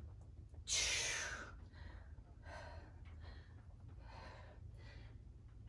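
A woman breathing hard from the exertion of weighted squats. There is one loud, airy exhale about a second in, then a run of quieter breaths in and out.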